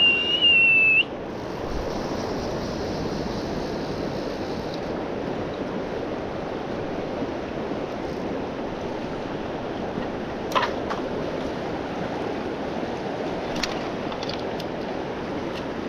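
River water rushing steadily. A short, high, steady tone sounds in the first second, and a few sharp clicks come later.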